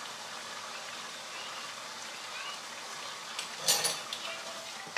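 Ground beef in sauce sizzling in a frying pan, a steady frying hiss. About three and a half seconds in, a louder scrape as a wooden spatula stirs the meat against the pan.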